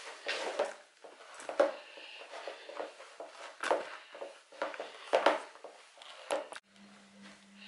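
Hands kneading a soft yeast dough in a plastic bowl: irregular squishing pushes and slaps, about one a second. Near the end the kneading sounds cut off and a steady low hum takes over.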